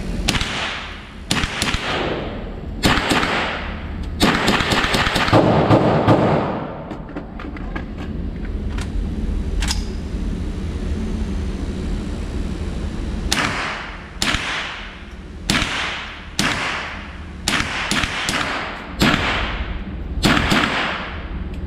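Gunshots fired one after another: a quick cluster about four seconds in and fainter quick cracks after it, then, following a pause, a steady string of shots roughly every three-quarters of a second.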